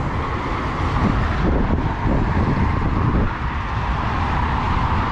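Road traffic noise with a motor vehicle driving past, its engine and tyre rumble heaviest between about one and three seconds in.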